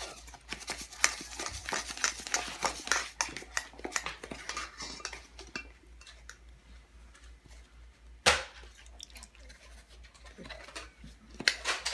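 Ice cubes clinking and rattling inside stainless steel insulated tumblers as they are handled and tipped. The clatter is thick in the first few seconds, then sparse, with one sharp knock about eight seconds in and another short burst of clinks near the end.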